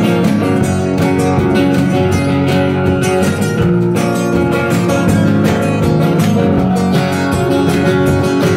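Acoustic guitars strumming together in an instrumental passage of a song, played live.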